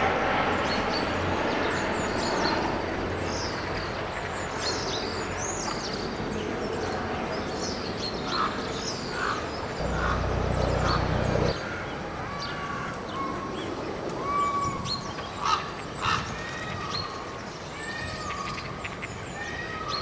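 Ducks and geese calling, a few louder calls here and there, over a steady chatter of high small-bird chirps. A brief low rumble comes about halfway through.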